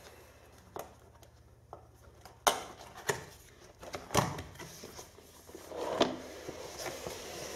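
Cardboard packaging being opened and handled: about half a dozen scattered knocks and scrapes of card on card, the sharpest about two and a half and four seconds in.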